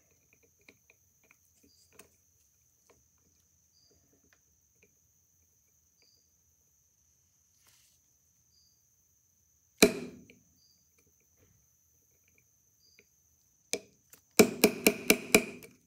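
Small brass-and-plastic-faced hammer striking at a stuck pin in a Victor II phonograph's steel spring barrel. There is one sharp metal tap past the middle and a lighter one later, then a quick run of about seven taps near the end.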